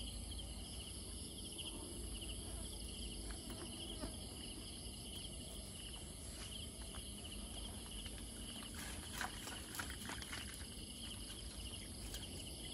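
Night insects chirping in a steady, fast-pulsing chorus, with a few faint clicks about two-thirds of the way through.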